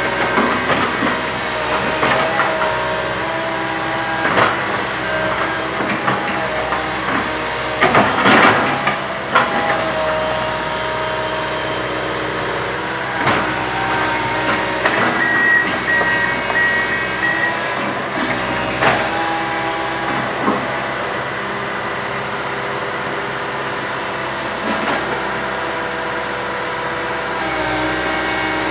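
Komatsu PC160 hydraulic excavator running, its engine and hydraulics holding a steady drone with several held tones, with scattered knocks and clanks from the working machine.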